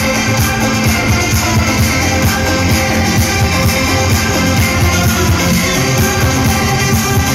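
Loud electronic dance music from a nightclub sound system with a steady beat, recorded on a phone in the crowd.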